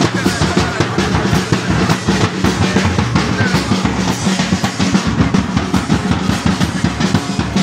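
Live drumming with a fast, dense, steady beat, bass drum and snare together, played loud.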